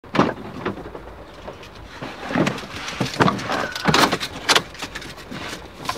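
Knocks, clicks and rustles of someone moving about and handling things inside a parked car's cabin, with a sharp knock right at the start and several more in the middle.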